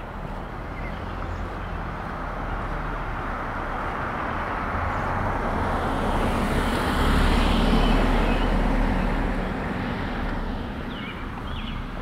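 A car passing on the street: engine and tyre noise swells, is loudest about seven to eight seconds in, then fades away.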